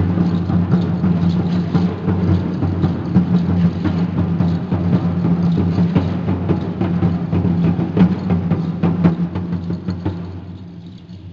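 Aztec ceremonial dance drumming: a large drum beaten steadily under a crackle of many sharp clicks from rattles. It dies down about ten seconds in.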